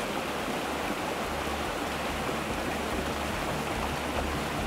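Shallow, rocky river water rushing steadily over stones and through small riffles, with a low rumble underneath.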